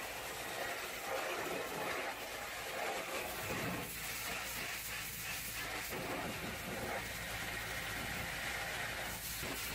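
Hot-water pressure washer jet blasting mud off the steel chassis underside of a box truck: a steady hiss of spray with water and mud spattering off the frame. A low rumble joins in about three and a half seconds in.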